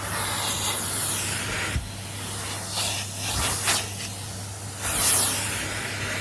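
Numatic Henry cylinder vacuum cleaner running: a steady motor hum under the hiss of air rushing through the nozzle, which rises and falls as the nozzle is worked over sofa upholstery, loudest about five seconds in.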